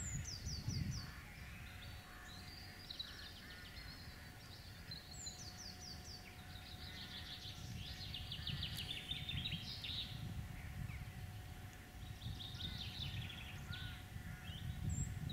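Small songbirds singing repeated quick trills, over a faint, fluctuating low rumble.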